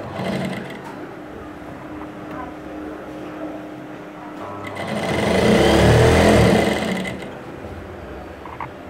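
Industrial lockstitch sewing machine stitching through cloth: a brief run right at the start, then a longer, louder run of about two and a half seconds from roughly four and a half seconds in.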